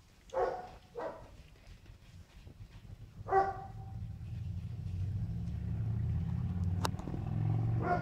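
Short pitched animal calls, two close together near the start and a louder one about three seconds in, over a low steady rumble that builds up and holds through the second half, with one sharp click near the end.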